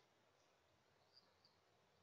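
Near silence, with a few faint, short high-pitched chirps of night insects.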